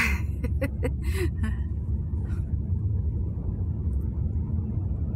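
Steady low road rumble of a moving car, engine and tyres, heard from inside the cabin.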